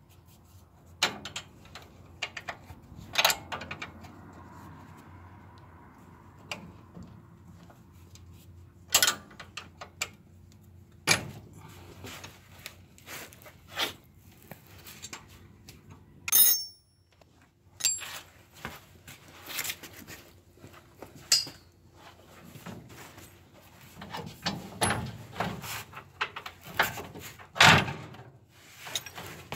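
Hand tools working on the steel front suspension of a 1966 Chevy El Camino: irregular metallic clicks, knocks and clanks of a wrench on the shock absorber bolts and lower control arm. One loud, ringing metal clink comes about halfway through.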